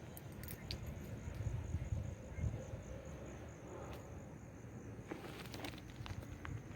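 An insect trilling steadily at a high pitch, a fine even pulsing, over a low rumble, with a few sharp clicks in the second half.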